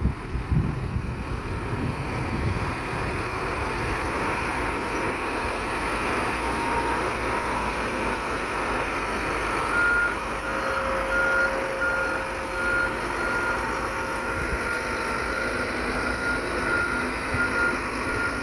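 Diesel engine of heavy earthmoving equipment running steadily. About ten seconds in, a reversing alarm starts beeping, roughly one and a half beeps a second, as a machine backs up.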